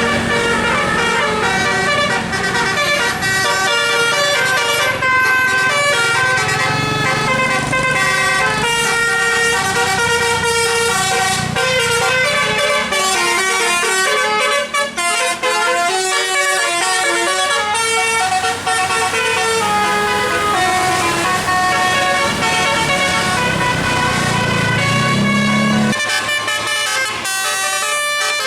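Bus telolet horn, a set of air horns switched to play notes, sounding a fast tune of stepped pitches with a bus engine running underneath.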